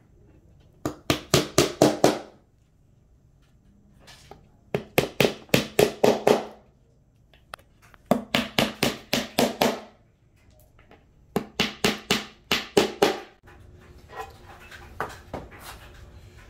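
A hammer striking the edge of a melamine drawer-box panel, driving it down onto glued wooden dowels until it seats: four bursts of quick taps, six to eight strikes each, a few seconds apart. Faint rubbing near the end.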